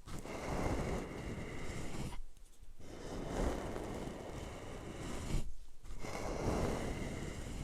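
A brush being rubbed over a microphone for ASMR mic brushing: long, scratchy rustling strokes, broken by two short pauses about two and a quarter and five and three-quarter seconds in.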